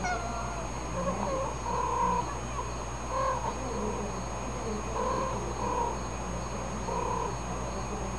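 Two cats' short vocalisations from the 'two talking cats' video, played through a laptop's small speakers: brief calls follow one another every second or so, like a back-and-forth conversation.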